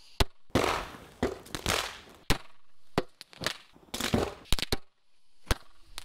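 Firecrackers going off: a run of sharp bangs and cracks, some in quick clusters, between short rushes of noise.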